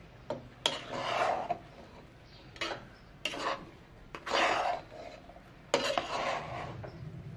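A spatula scraping and turning finished khichuri (rice with lentils and chicken) in a large cooking pot, in about five separate strokes, each under a second.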